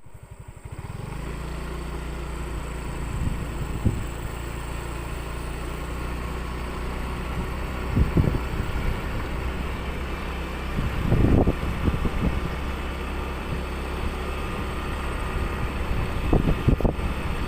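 An engine running steadily with a low drone. There are a few louder knocks or bumps about eight seconds in, again around eleven seconds, and near the end.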